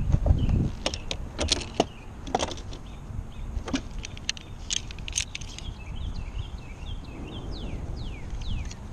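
Sharp metal clicks and clinks of rope-rescue hardware, a descent device and its clips, handled by gloved hands, several in quick succession through the first half. Wind buffets the microphone briefly at the start, and birds chirp in the second half with a run of quick, falling chirps.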